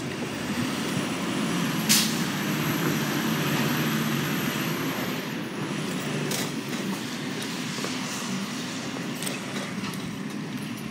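Garbage truck's diesel engine running steadily as the truck moves off down the street, with a short sharp hiss, typical of its air brakes, about two seconds in.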